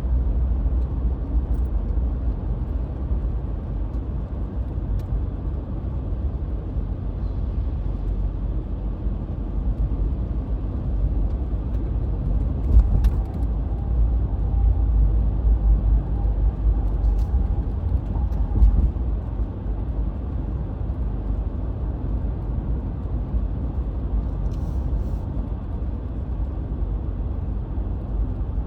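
Steady low rumble of a car driving at road speed, heard from inside the cabin: tyre and engine noise, with a few faint clicks.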